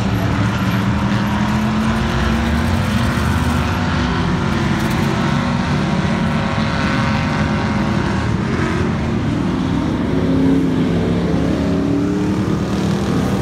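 Several dirt-track stock cars racing, their engines running hard together, with the pitch rising and falling through the turns.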